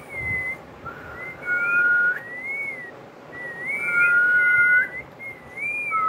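Indian ringneck parrot whistling: a run of clear notes, some gliding up and down and some held, often two pitches sounding at once.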